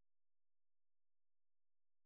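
Silence: the soundtrack is empty.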